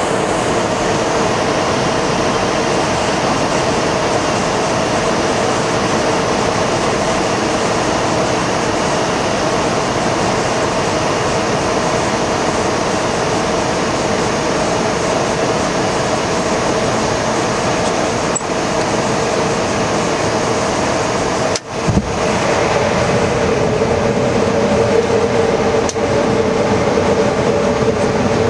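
Steady flight-deck noise of an Embraer E175 airliner on approach: an even rush of airflow with a steady engine and air-conditioning hum. A brief dropout about three quarters of the way through, after which the noise is a little louder.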